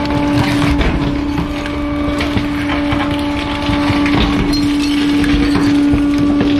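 Bulk-waste truck's hydraulics running with a steady hum while bulky items are crushed, wood cracking and splintering several times.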